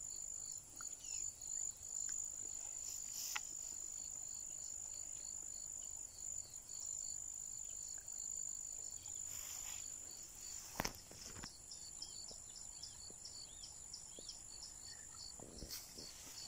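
Insects calling: a steady high buzz with a faster chirp repeating several times a second over it. There is a sharp click about three seconds in and another a little past the middle.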